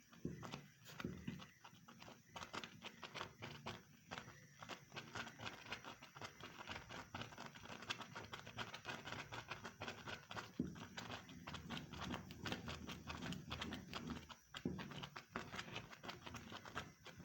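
Rapid, irregular clicks and taps from a pot of porridge being stirred as it cooks toward the boil.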